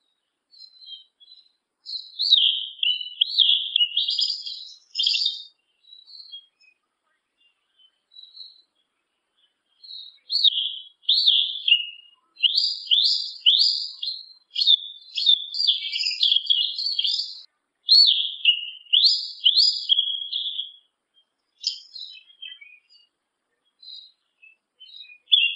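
Male yellow-legged thrush (sabiá-una) singing: quick runs of high, varied chirping notes in bursts, with a long run from about ten to twenty seconds in and scattered single notes between.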